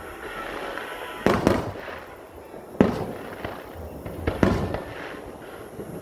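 Aerial fireworks bursting: three loud booms, about a second and a half apart, each trailing off in a rumble, with crackling in between.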